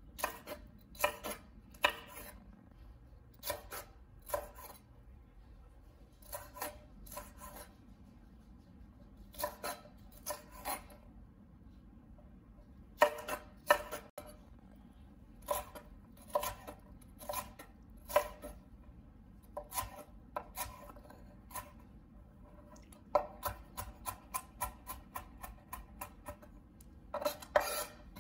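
Chef's knife cutting mini sweet peppers on a wooden cutting board: sharp knife strokes against the board, singly and in pairs a second or two apart, quickening into a fast run of dicing chops near the end.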